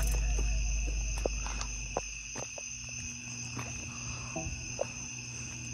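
Crickets chirring steadily, with a few scattered clicks and taps; a low hum underneath fades out about halfway through.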